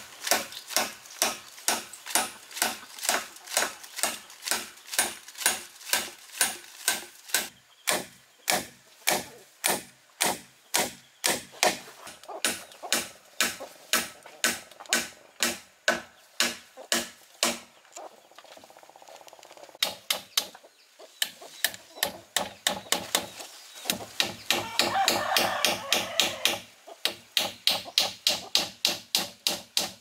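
Repeated hand-tool strikes on building material at a steady pace of about two a second, with a short break a little past the middle. A louder, noisy stretch mixes in for a few seconds near the end.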